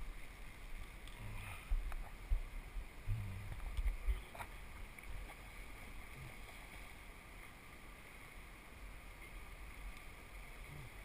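Steady rush of river water, with a few low thumps over the first four seconds.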